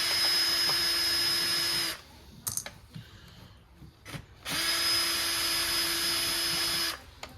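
Cordless power drill-driver backing out screws in two runs of about two and a half seconds each, with a steady whine at constant speed. A few light clicks fall between the runs.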